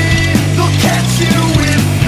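Rock music with a steady drum beat over a held bass line.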